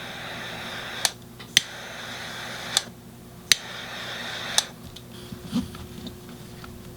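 Medical trauma shears cutting nylon webbing strap: a rasping crunch of the blades through the strap, broken by about five sharp snips over the first four and a half seconds, then quieter handling.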